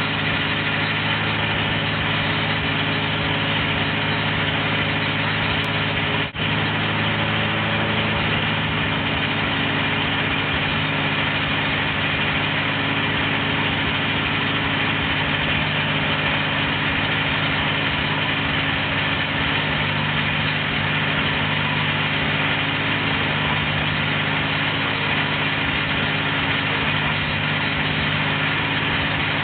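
International Harvester tractor engine running steadily, turning the rear wheel that carries the wood-chunker knife. The level dips briefly about six seconds in.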